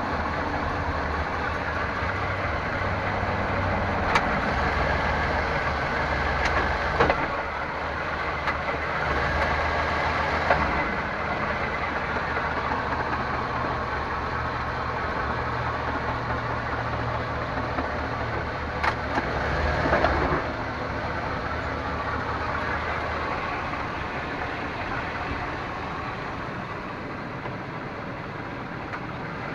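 A 1998 Chevrolet Suburban K1500's 5.7-litre V8 idles steadily while its 4L60E automatic is shifted between park and drive. A few sharp clunks come from the driveline as the gears engage, about four and seven seconds in and twice close together around nineteen to twenty seconds in. The cause of the clunking on gear engagement is unknown.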